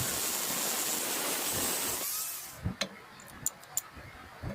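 A steady hissing noise that stops about two and a half seconds in, followed by a few light clicks and knocks.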